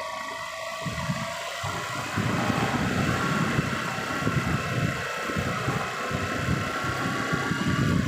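A vehicle running, with a steady whine and an irregular low rumble underneath.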